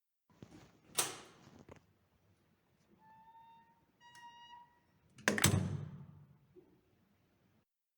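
A door opening and closing: a sharp click of the latch and handle, two short creaks from the hinges as it swings, then a heavy thud as it shuts, with a small knock after.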